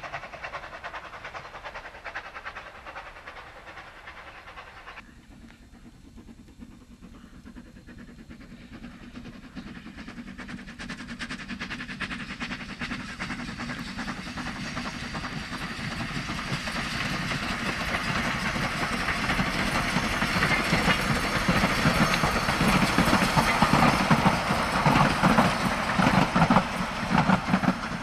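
Steam tank locomotive No. 12 Hutchinson working a passenger train. A departing train fades for the first few seconds, then after a sudden cut an approaching train's exhaust and wheel noise grows steadily louder as the engine, working hard under a heavy plume, and its coaches pass close by.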